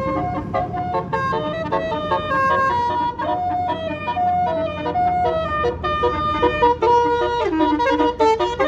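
Bus telolet basuri horn playing a melody of held notes that step up and down, with the bus engine running underneath.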